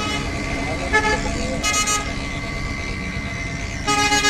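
Vehicle horns tooting in several short blasts, about a second in, near two seconds and again at the end, over a steady rumble of road traffic.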